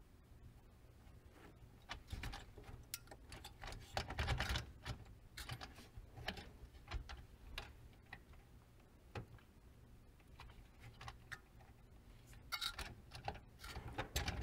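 Irregular clicks, taps and light knocks of hardware being handled as a CPU tower cooler is worked loose from its motherboard mount, with a busier cluster about four seconds in and another near the end.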